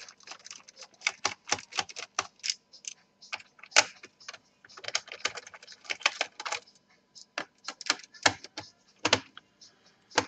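Quick, irregular clicks and taps of a hand screwdriver working screws out of the plastic bottom case of an Acer Aspire 5742 laptop, with a few sharper clicks about four and nine seconds in.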